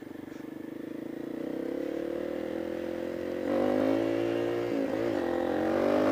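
Honda CRF230 supermoto's single-cylinder four-stroke engine running under way, its pitch rising slowly. It gets louder as the throttle opens a little over halfway through, dips briefly about a second later, then pulls on.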